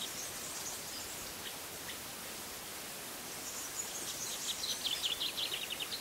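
A songbird singing: a quick run of rapid notes falling in pitch, lasting about two seconds near the end, over a steady outdoor hiss. A few faint high bird notes come near the start.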